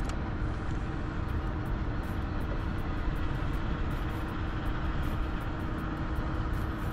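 Steady low rumble of engine noise with a faint held hum in it.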